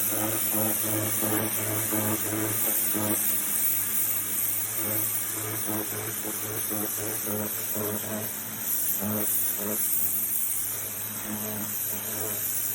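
An engine running steadily, with a low hum and a fluttering pulse above it.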